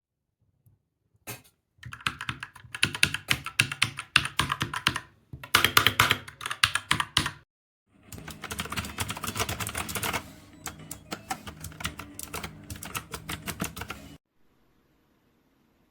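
Typing on a Dierya DK61se 60% mechanical keyboard with red linear switches: rapid runs of key clicks that start about a second in, break off twice briefly, and stop shortly before the end.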